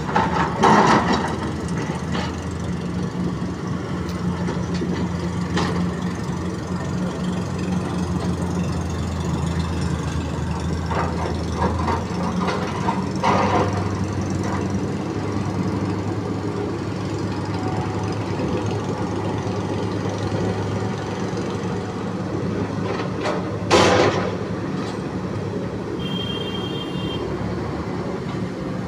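Backhoe's diesel engine running steadily, its pitch dropping about twelve seconds in, with occasional metal clanks and knocks from the working bucket and arm. The loudest knocks come right at the start and about three-quarters of the way through.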